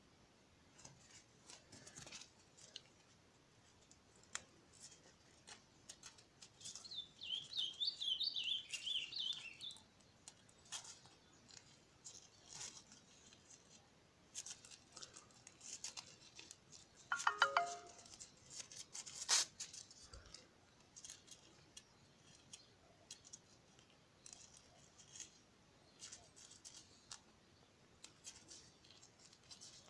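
Scissors snipping through umbrella fabric, with scattered small clicks and handling noise. Around a quarter of the way in there are a couple of seconds of high warbling chirps, and a brief pitched sound comes a little past the middle.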